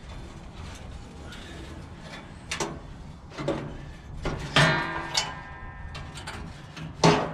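Metal parts of a gas grill being handled, giving several separate clanks and clicks. The loudest, about four and a half seconds in, rings briefly afterwards.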